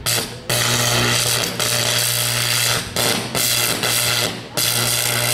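High-voltage electrical arc at an energized power line, buzzing and crackling loudly in a string of bursts of about a second each, broken by short gaps, with a steady low electrical hum under the crackle.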